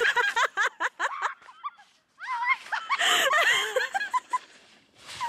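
People laughing hard in rapid, high-pitched bursts, breaking off for a moment about two seconds in and then laughing again.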